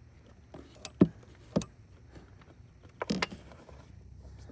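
A few sharp metal clinks and knocks of a socket and wrench against engine parts as they are worked onto a hard-to-reach bolt beneath a pulley. The loudest comes about a second in, another follows half a second later, and a short cluster comes about three seconds in.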